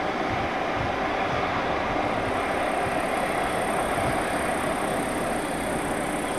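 Boeing 777 jet engines running with a steady rush as the airliner rolls slowly along the runway. A high whine joins about two seconds in.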